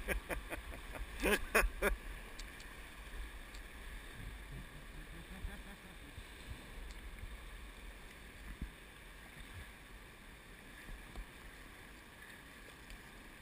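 Steady rush of a fast-flowing river, with wind rumbling on the camera's microphone. A few louder knocks and splashes come in the first two seconds.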